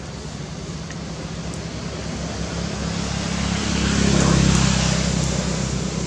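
A motor vehicle passing by: a steady engine hum and road noise that build to a peak about four seconds in, then ease off.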